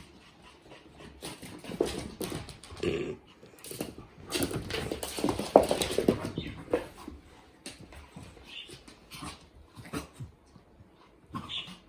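A Pomeranian and a beagle playing together: short whiny vocal noises mixed with scuffling and knocks, busiest and loudest about four to seven seconds in.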